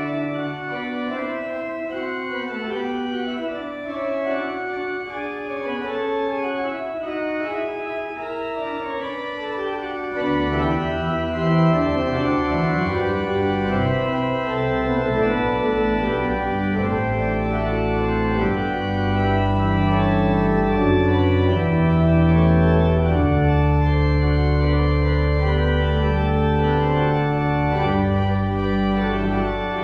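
Organ music: slow held chords. About ten seconds in, deep pedal bass notes come in and the music grows fuller and louder.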